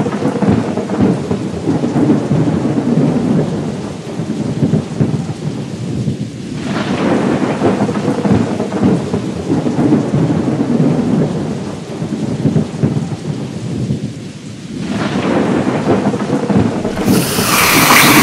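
Thunderstorm ambience: rolling thunder over steady rain, swelling three times, with a louder, higher-pitched burst near the end.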